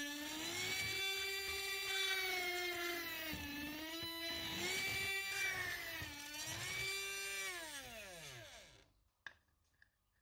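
Small 12-volt brushed DC motor of a 3D-printed mini drill press running with a steady whine, the pitch sagging a few times as the fine bit is pressed into a thin wooden strip. Near the end the motor is switched off and spins down with a falling whine, followed by a single click.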